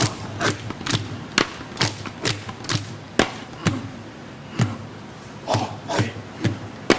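Rhythmic drumming: sharp drum strokes about two a second, several with a deep thud that drops in pitch, with a short gap in the beat near the middle.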